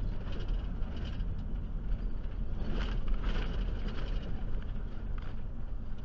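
Ford E150 van heard from inside the cab while driving up a rough dirt road: a steady low engine and road rumble, with scattered knocks and rattles as it jolts over the rocky surface.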